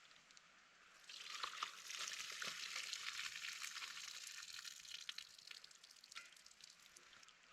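Food sizzling and crackling in a hot pot on a portable camping stove, with small clicks of stirring. It starts about a second in and slowly dies down.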